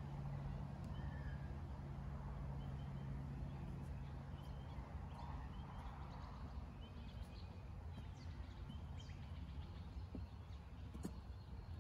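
Outdoor background: a steady low hum that eases off after a few seconds, faint bird chirps, and a few light knocks near the end.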